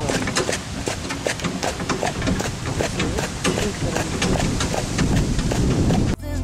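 A horse's hooves clip-clopping and a horse-drawn cart's wheels rolling on a gravel path: a run of irregular clicks over a steady rumble.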